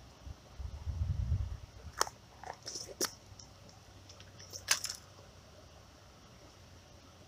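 A screw-top jar of Gulp Alive soft bait handled close to the microphone: a dull rumble of handling about a second in, then three sharp clicks with brief scrapes of the jar and its lid as bait is taken out.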